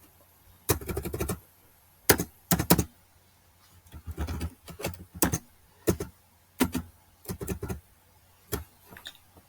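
Computer keyboard being typed, in irregular short runs of key clicks separated by pauses.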